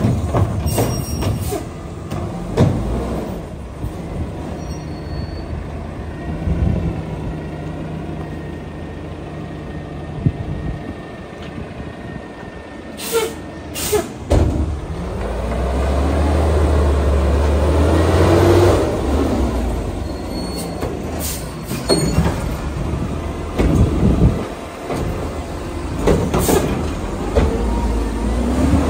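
Mack LEU garbage truck with a Curotto-Can automated cart arm at work: its diesel engine running, then revving up as the truck pulls away and moves on. There are two short air-brake hisses about halfway through, and clunks from the arm and carts later on.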